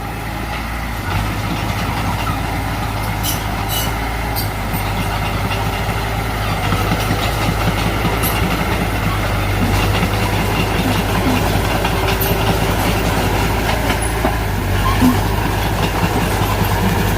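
Diesel engine of heavy earthmoving machinery running steadily under work, with a few sharp metallic clicks about three to four seconds in and the level rising a little partway through.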